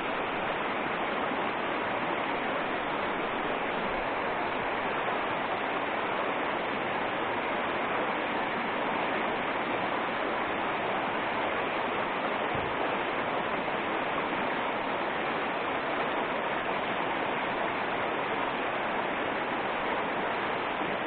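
Shallow, fast mountain river running over a pebble riffle: a steady rush of water.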